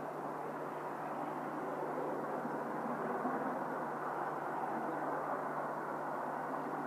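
Steam locomotive and its train running at speed in the distance, heard as a steady rushing rumble without distinct chuffs, growing a little louder in the middle.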